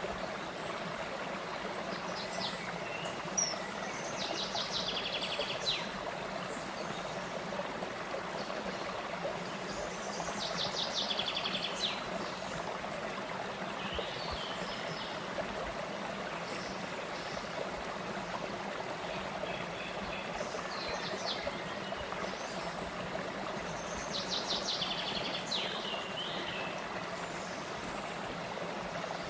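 A small stream running steadily over low rock ledges into a shallow pool. A songbird sings a short, rapid high trill three times, roughly every ten seconds, with a few brief chirps between.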